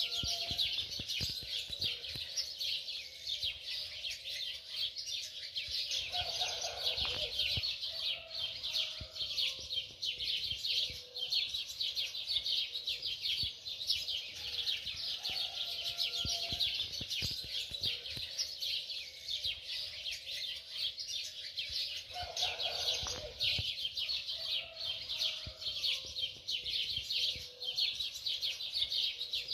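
A dense, continuous chorus of many small birds chirping. The same passage repeats about every sixteen seconds, like a looped ambience recording.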